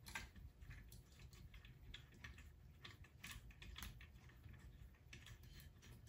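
Faint, irregular light metal clicks of an M10 bolt being spun in by hand through an ATV engine's cylinder jug, to snug the jug down onto the engine case.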